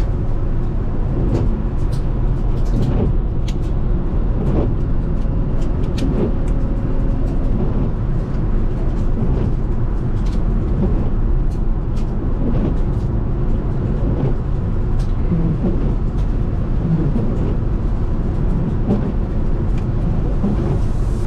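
Steady low rumble of a car driving on a snowy highway, heard from inside the cabin, with scattered light ticks.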